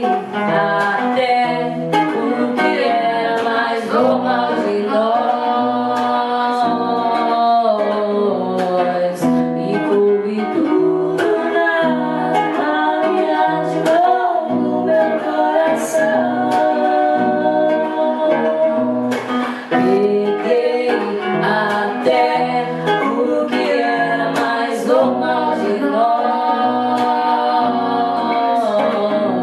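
A song: a solo voice singing a melody over plucked guitar, with a steady pulse of low notes underneath.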